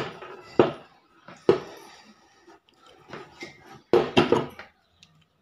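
Knocks and clanks from the metal pump casing of a 1 HP V-Guard water pump motor as it is worked loose and pulled open to reach the impeller: a couple of single knocks, then a quick cluster of loud knocks about four seconds in.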